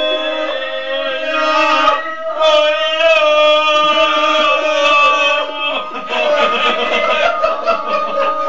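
Male ganga singing, the traditional Herzegovinian style: loud, long held notes, with a short break about two seconds in.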